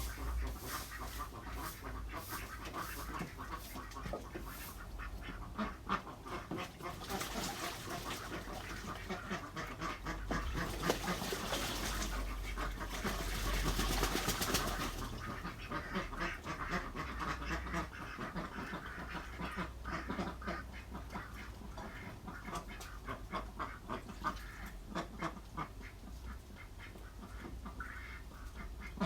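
Ducks quacking, many short calls in quick, overlapping succession, with a stretch of scratchy hiss about halfway through.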